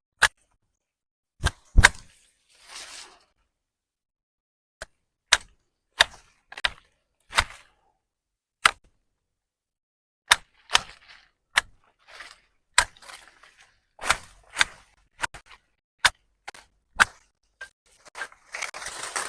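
A hand tool chopping into overgrown grass and weeds: sharp strikes at irregular intervals, some followed by a brief rustle, with denser rustling near the end.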